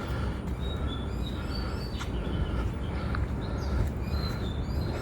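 Outdoor night ambience: a steady low rumble with repeated short, high chirps, like birds calling.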